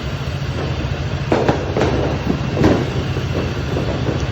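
New Year's Eve firecrackers going off: a steady low rumble with several sharp cracks standing out in the middle.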